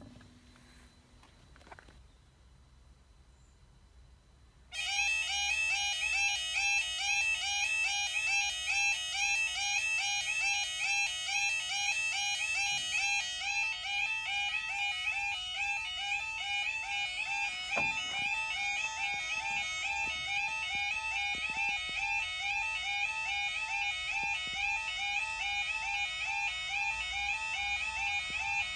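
Level crossing audible warning alarm (yodel alarm) sounding: a rapid two-tone electronic warble starts suddenly about five seconds in and repeats steadily, warning road users that the barriers are coming down for a train. Its pattern shifts slightly about halfway through.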